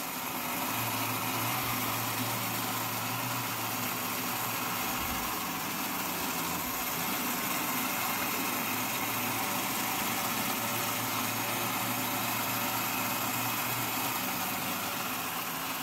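Ideal Electronic Fighter Jet toy's electric motor mechanism running steadily with a continuous hum while the toy is in play.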